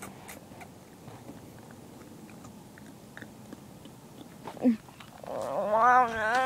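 Faint clicks and rustling of a phone being handled, then about five seconds in a person's voice starts a long, wavering drawn-out note, loud and held past the end.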